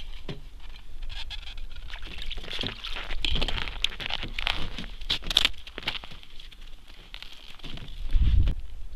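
Crackling, rustling and scraping of an ice fisherman's winter clothing and the slushy ice and snow at the hole as he works a short jigging rod, with a dull low thump near the end.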